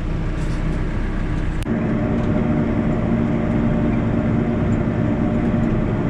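Backhoe loader's diesel engine running steadily, heard from inside the cab. About two seconds in there is a click, after which a steady hum comes up over the engine drone.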